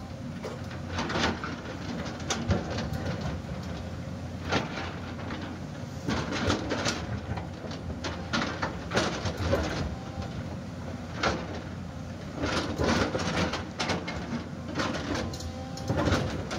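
JCB tracked excavator running while its bucket digs and scrapes into a loose rock slope, with broken stones clattering and tumbling down in irregular knocks over a steady engine hum.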